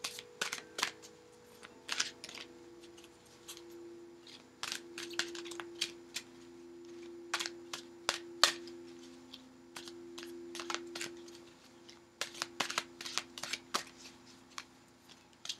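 A deck of oracle cards being shuffled by hand: a long run of quick, irregular card snaps and flicks.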